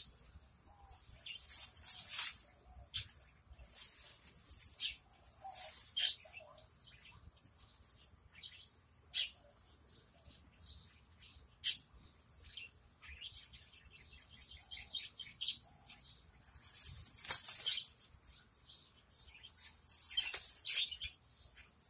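Leaves and stems rustling in irregular bursts as weeds are pulled by hand from a ground-cover bed, with a few sharp clicks.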